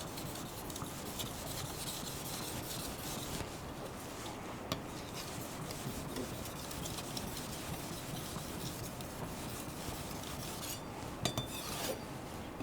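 Edge of a Japanese bunka kitchen knife being stroked on a 5000-grit waterstone: a steady wet rubbing and scraping of steel on stone, with a few light clicks from the blade on the stone, as the edge is finished.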